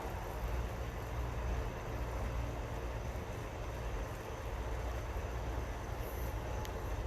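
Steady low rumble with an even hiss of outdoor background noise, with no distinct call or event standing out.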